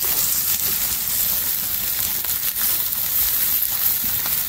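Chunks of red potato sizzling in a frying pan over an open fire: a steady hiss with fine crackles running through it.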